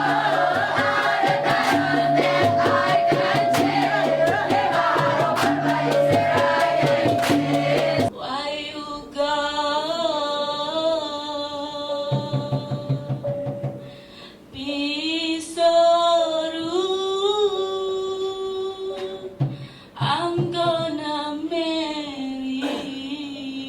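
Dikir Barat performance: a group sings over steady hand-drum percussion for about eight seconds, then the drums stop and a single voice sings on alone with a wavering, ornamented melody.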